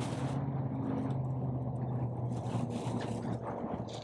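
A motor running steadily with a low hum that fades out near the end, with a few faint clicks.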